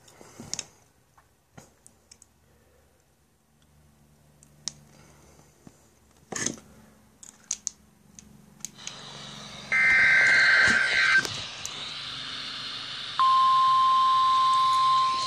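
NOAA Weather Radio audio from a Midland HH54VP2 receiver's speaker. Faint clicks give way to rising hiss, then a short data burst about ten seconds in, the tail end of the SAME alert header. A couple of seconds later the steady 1050 Hz warning alert tone begins, signalling that an emergency alert message, here a Tornado Watch, is about to follow.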